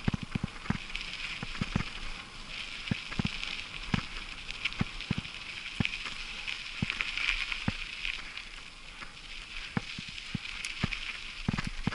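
Bicycle tyres rolling over a gravel forest track: a steady gritty crunch with irregular knocks and rattles as the bike jolts over the loose stones.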